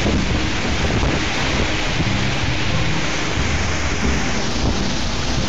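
Storm-force wind driving heavy rain, a loud steady rush with wind buffeting the microphone. Low sustained music notes run faintly underneath.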